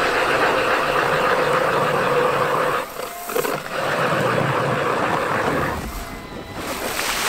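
Battery-powered ION Alpha Plus electric ice auger drilling a hole through about 16 inches of river ice, its motor and cutting blades running steadily. The sound dips briefly about three seconds in, comes back, then dies down near the end as the auger is nearly through.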